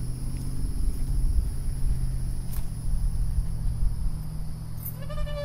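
Steady low rumble with a faint hum. Near the end comes one high squeak held for about a second: the metal chain of a playground swing creaking under a rider.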